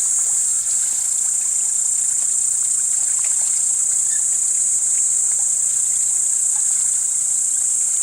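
Steady, high-pitched chorus of insects, with faint scattered clicks underneath.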